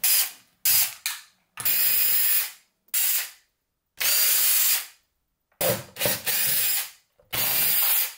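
Cordless power screwdriver running in short bursts, stopping and starting about nine times, backing screws out.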